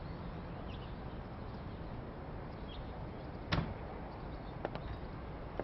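A door bumps once, loudly, about halfway through as a glass-paned door onto a wooden deck is worked. A couple of light footsteps on the deck follow near the end, over a steady outdoor background hiss.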